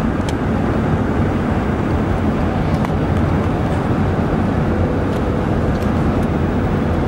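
Steady road and engine noise of a moving car.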